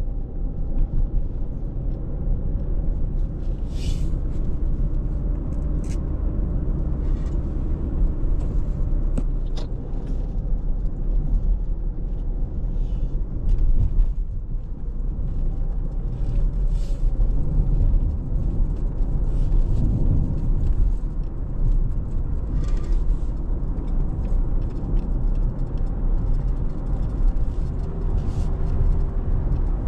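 Steady rumble of a road vehicle on the move, engine and road noise together, with short hissing sounds every few seconds.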